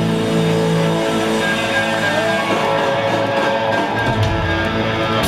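Live rock band playing loud, with electric guitars.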